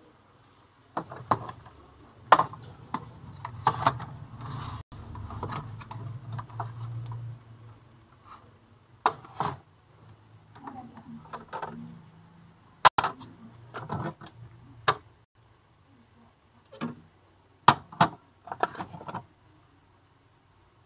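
Food containers, jars and bottles being handled on refrigerator shelves: scattered clicks and knocks of plastic and glass, with a low hum during the first several seconds.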